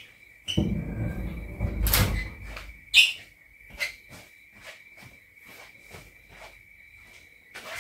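A Series 1 Jaguar's bonnet being pulled down by hand: handling knocks and rustle, then a sharp metal clunk about three seconds in and a few lighter clicks, over a faint steady high whistle.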